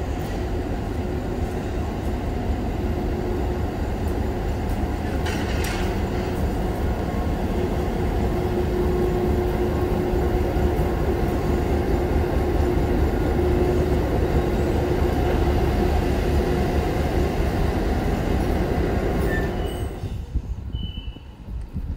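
NSWGR 42 class diesel-electric locomotive 4201, its two-stroke EMD V16 engine running with a steady deep drone and a held hum, growing louder as the locomotive draws close. A short hiss about five seconds in; the sound drops away near the end.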